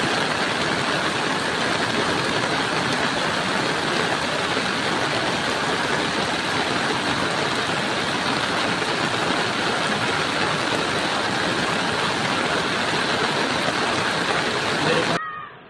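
Flash floodwater rushing in a muddy torrent, a loud, steady rush of water noise that cuts off suddenly near the end.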